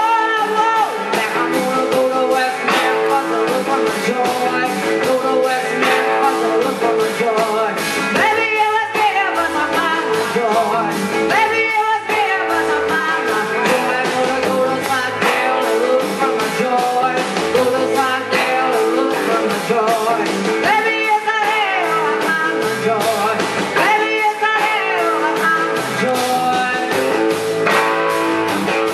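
A live rock band playing, with a woman singing over electric guitars, bass guitar and a drum kit.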